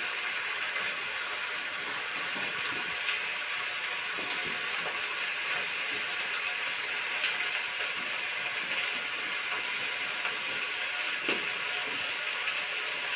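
Steady sizzling hiss of food cooking in a pan, with faint scattered clicks and ticks.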